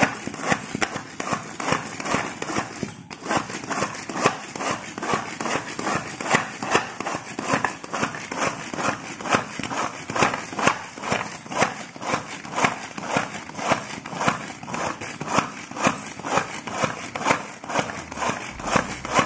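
Hand-press manual food chopper being pumped in a steady rhythm of about two strokes a second, each press spinning its blades through onions and chillies in the plastic bowl. The pumping stops just before the end.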